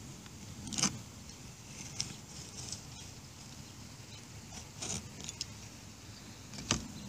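Utility knife blade scraping old silicone caulk off a camper's wall: a few short, sharp scrapes, the loudest about a second in and near the end, over a steady low rumble.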